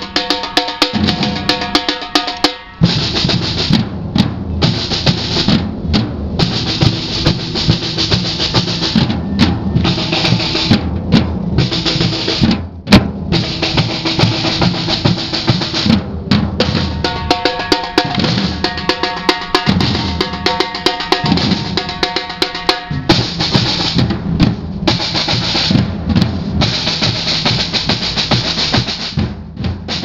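Samba percussion band playing a driving rhythm: surdo bass drums beaten with mallets, with snare drums and metal-shelled drums struck with sticks. The whole band stops together for several brief breaks, then comes back in.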